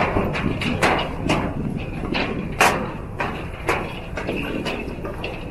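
Footsteps of several people on a steel footbridge's metal deck, clanking underfoot in an irregular run of sharp knocks, several a second, with one louder knock about two and a half seconds in.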